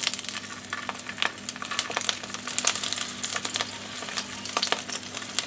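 Shell-on tiger prawn tail searing in hot oil in an iron pan: a steady sizzle with a dense run of crackling pops.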